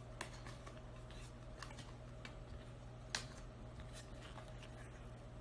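Uno cards being laid down onto a discard pile on a small table: faint light taps and clicks, the sharpest about three seconds in.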